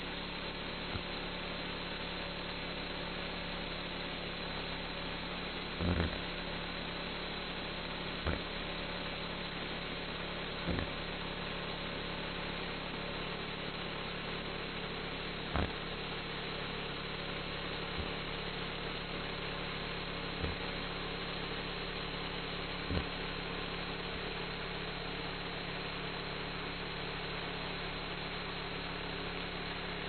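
Homemade band sawmill running steadily, its 11-horsepower gas engine driving the band blade through a log, with several short knocks here and there.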